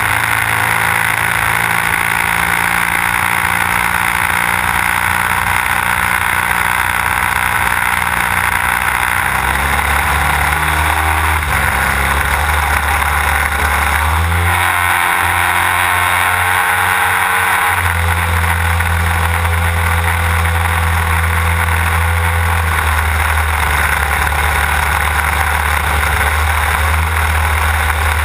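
Desert Aircraft DA-150 twin-cylinder two-stroke petrol engine of a large-scale RC aerobatic plane, heard close up from an onboard camera, running loud with its propeller. The engine note shifts with throttle changes, gliding in pitch about ten seconds in and again around fourteen to eighteen seconds.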